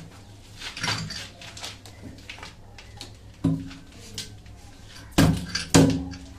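Knocks and clatter from hands working PVC pipe fittings on a monoblock water pump: scattered scrapes and taps, then two sharp knocks about half a second apart near the end, the loudest of all.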